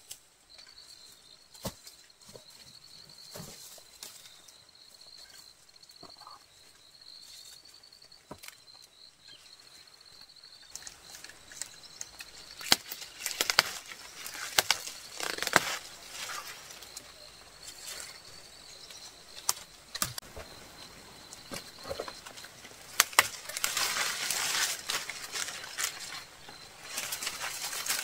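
Papaya leaves rustling and leaf stalks snapping as they are pulled down by hand, in irregular bursts with sharp cracks, heaviest near the middle and the end. Before that, a faint high wavering trill runs on its own.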